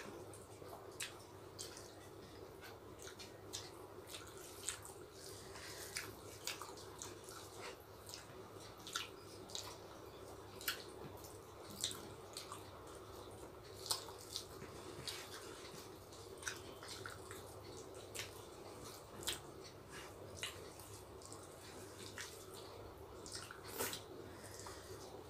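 Faint, irregular wet clicks and smacks of people eating rice and chicken curry by hand: fingers mixing the food on the plate, and chewing. A low steady hum runs underneath.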